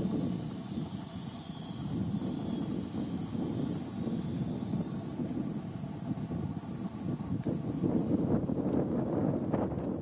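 Steady, high-pitched trilling of an insect chorus in the marsh, with a low rumble underneath.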